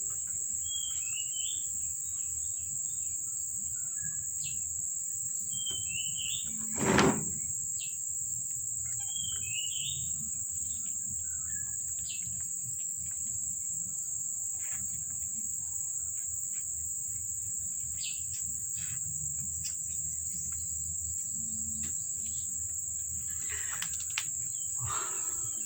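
Steady high-pitched chirring of crickets, with a bird giving a short chirping call three times and one loud knock about seven seconds in.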